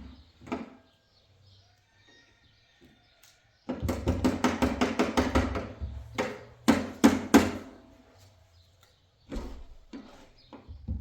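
Hammer blows: a quick run of light strikes, about five a second, starting about four seconds in, then several heavier single blows, and a few more strikes near the end.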